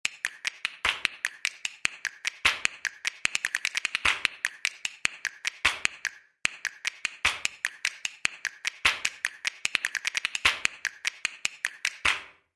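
Rapid, irregular sharp clicks or taps, several a second, with a brief pause about six seconds in. They stop abruptly near the end.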